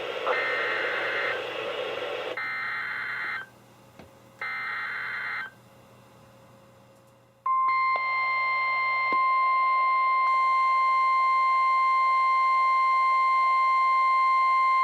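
NOAA Weather Radio alert from station KHB36: three warbling data bursts of the SAME alert header, each about a second long with a quiet gap between, the first over radio hiss. Then, about halfway through, the steady 1050 Hz weather-radio warning alarm tone starts and holds. Together they announce a new Severe Thunderstorm Warning.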